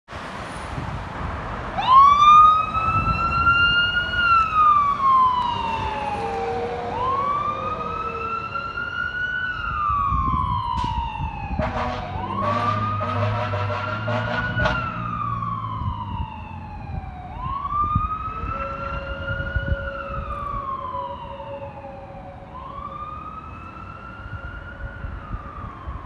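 Fire rescue truck's siren wailing, rising and falling in slow cycles of about five seconds. About halfway through, its low air horn blasts for a few seconds as it clears the intersection. The siren grows fainter near the end.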